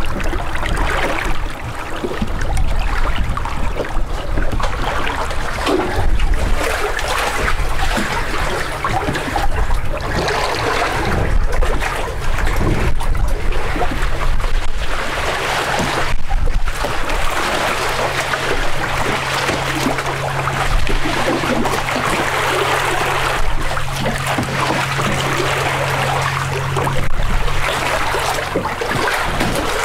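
Choppy water sloshing and slapping against a catamaran's hulls. A low steady hum comes in partway through and stops near the end.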